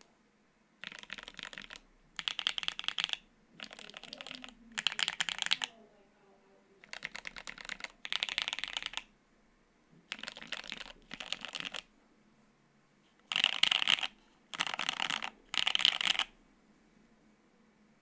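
Mechanical keyboard typing: a gasket-mount 75% board with an aluminium plate, lubed Tealios V2 linear switches and NK Silk Yellow switches under GMK doubleshot ABS keycaps, typed in about ten short, fast bursts of keystrokes with brief pauses between them. The last three bursts, near the end, are the loudest.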